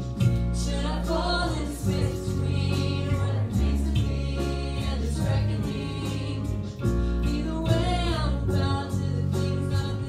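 Live worship song: a woman singing lead over keyboard and electric guitar, with a steady low bass line.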